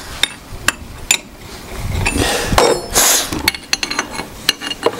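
Steel wrenches clinking and knocking against steel hydraulic hose fittings as they are tightened: a string of sharp metallic clicks, some with a short ring, with a stretch of rustling handling noise in the middle.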